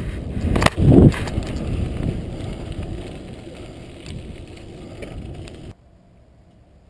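Bicycle ridden over a dirt-jump track: tyre rumble on loose dirt and wind on the microphone, with a loud thud about a second in, then fading. About six seconds in it cuts off suddenly to faint outdoor background.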